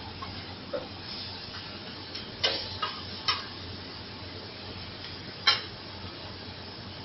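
Chicken fajita strips sizzling on a flat-top griddle, with a metal spatula clacking against the steel plate a few times, the loudest clack about five and a half seconds in.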